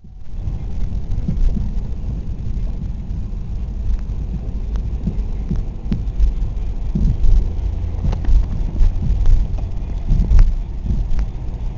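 Wind buffeting the microphone as a heavy, gusting low rumble, with scattered light knocks.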